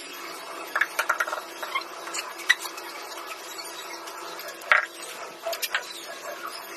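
Tiling work: irregular light scrapes and clinks of hand tools against tile and adhesive, with a few sharper clacks spread through.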